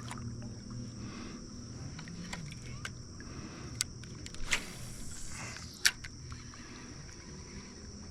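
Steady high-pitched insect drone with a faint low hum underneath, broken by a few sharp clicks and knocks, the loudest nearly six seconds in.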